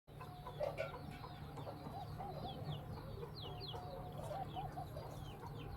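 Desi (country) chickens clucking repeatedly, with short high falling chirps among the clucks and a steady low hum underneath.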